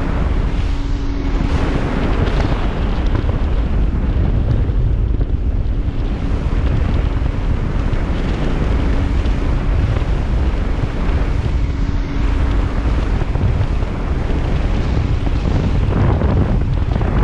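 Wind buffeting the microphone over the steady running of a center-console boat under way, engine drone and hull-on-water noise blended together. A faint steady engine tone sits under the wind now and then.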